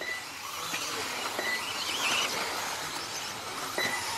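1/10-scale electric 2WD off-road buggies racing on a dirt track: a steady hiss of motors and tyres, with a few short high beeps.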